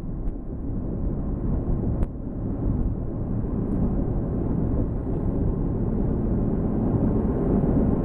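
Steady low rumble of a car driving along a snowy, icy highway, heard inside the cabin: tyre, road and wind noise, with a faint click about two seconds in.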